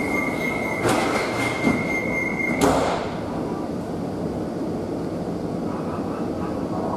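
Metro train door-closing warning tone sounding steadily, with a clatter about a second in, then the sliding doors shutting with a thump a little under three seconds in, which cuts the tone off. After that, the steady noise of the car.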